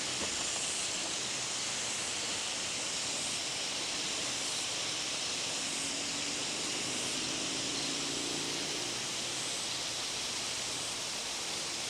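Steady, even rushing noise outdoors, with no footsteps or other distinct events.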